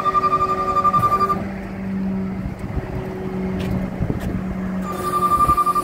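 Utility bucket truck running while its hydraulic outriggers are worked from the rear controls. A steady high-pitched tone cuts out about a second and a half in and comes back near the end. In the gap a lower hum comes up, with a couple of sharp clicks.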